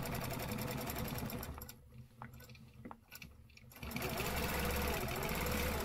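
Quilting machine stitching along an acrylic ruler. It runs steadily, stops for about two seconds with a few light clicks, then runs again.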